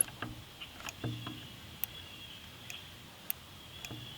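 Hydraulic control levers on a Wood-Mizer sawmill moved one after another, the micro switch in the control box clicking as each lever presses it down. A series of light clicks about a second apart, the first the loudest, some followed by a soft low knock.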